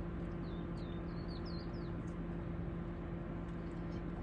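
A small bird giving a quick run of about six short, high chirps in the first two seconds, over a steady low hum.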